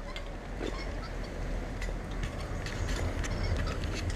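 Footsteps on a paved road with the irregular clicking and clinking of zipline harness hardware as the wearers walk, over a low rumble on the microphone.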